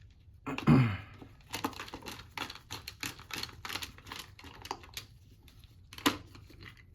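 Screws and a hand screwdriver clicking and tapping on the pump's cover as its four screws are put back and driven in: a string of short, irregular clicks, with a louder clatter about half a second in.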